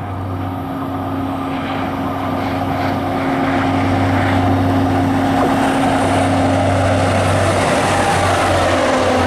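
ADtranz DE 2000 diesel-electric locomotives (OSE class 220) at the head of a passenger train approaching. Their diesel engines run with a steady low hum over wheel-on-rail noise, which grows louder over the first few seconds. Near the end the engine tone drops slightly in pitch as the lead locomotive draws level.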